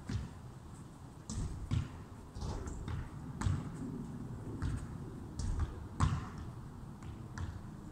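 A series of irregular soft thuds and taps, roughly one every second.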